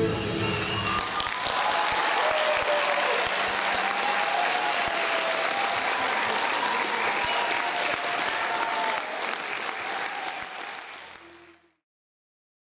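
Audience applauding as the guitar music ends, with cheering voices calling out over the clapping; the applause fades out near the end.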